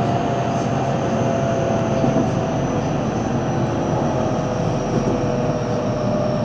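JR Central 313 series electric train running, heard from its front motor car: a steady rumble of wheels on rail with the traction motors' whine falling slowly in pitch as the train slows.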